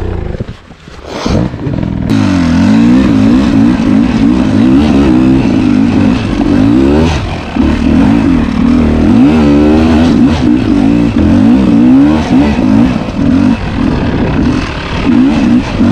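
Two-stroke dirt bike engine revving hard, its pitch rising and falling again and again as the throttle is worked. The engine note drops away briefly about a second in, then picks back up.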